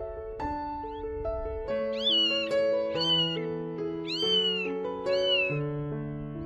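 A newborn kitten mewing: four short, high-pitched cries about a second apart, each rising then falling in pitch, starting about two seconds in. Soft piano music plays underneath.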